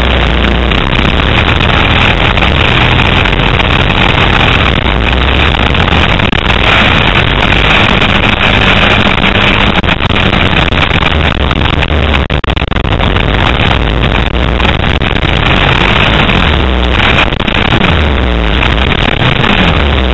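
Motocross dirt bike engine running hard and revving up and down through a lap, heard from onboard the bike.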